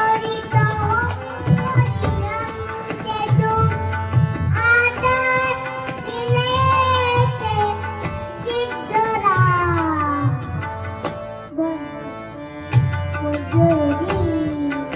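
A young girl singing a Marathi devotional song (bhajan) with a wavering, ornamented voice, over a steady tabla rhythm.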